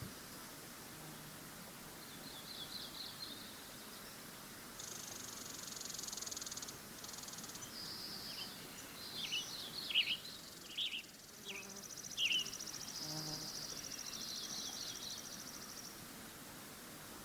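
Birds singing: high trilled phrases and long buzzy trills, with a run of quick downward chirps in the middle, over faint outdoor ambience.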